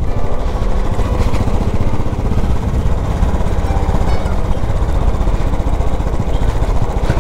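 Royal Enfield Desert Storm motorcycle's single-cylinder engine running steadily, a continuous fast train of low thuds.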